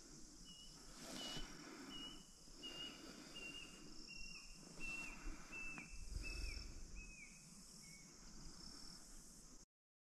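A bird calling faintly in a series of about a dozen short whistled notes, roughly two a second, each dropping at its end, the series stepping lower in pitch as it goes, over a steady high insect hiss. The sound cuts off suddenly near the end.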